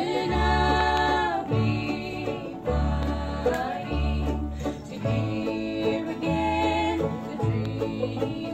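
Bluegrass band playing a waltz: banjo, mandolin, upright bass and acoustic guitar, with women's voices singing over the instruments.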